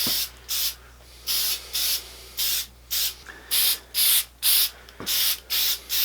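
Aerosol can of shellac spraying in short hissing bursts, about two a second, laying down a light sealing coat.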